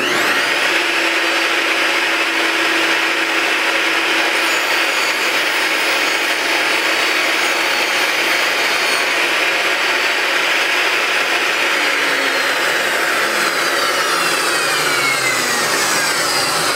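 Table saw with a thin-kerf blade spinning up, then cutting a shallow groove along a plywood drawer side. Near the end the blade coasts down in a falling whine.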